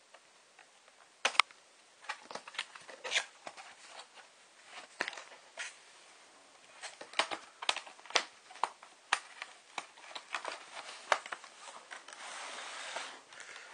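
Cardboard packaging being handled and opened by hand: irregular clicks, taps and crinkles, with a short rustling scrape near the end.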